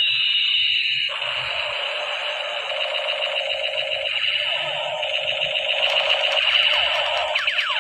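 Battery-powered toy MP5 gun playing its electronic rapid-fire sound effect through a small built-in speaker: a continuous thin, high electronic rattle, with gliding sweep tones coming in near the end.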